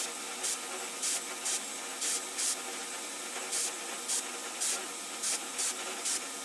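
Short, repeated blasts of compressed air, about two a second at an irregular pace, from a hand-held air nozzle blowing chips off an end mill as it cuts, over a steady hiss and the milling machine running.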